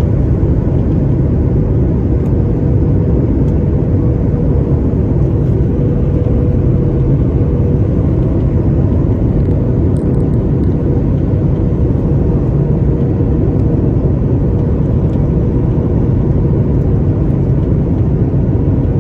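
Airliner noise during landing: a steady, loud rumble with a faint, constant hum above it.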